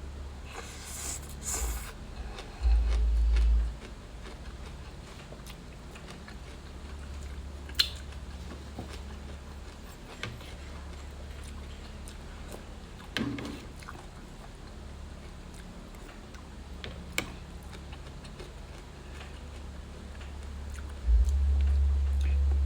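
Close-up eating sounds: chewing and small wet clicks of someone eating rice noodles and vegetables. A few low rumbles sound over them, the loudest about three seconds in and again near the end.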